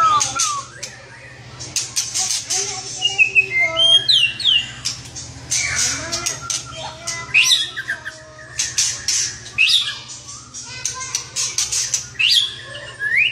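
White-rumped shama singing a varied song: rapid runs of harsh, clicky chattering notes mixed with quick rising whistles and warbles.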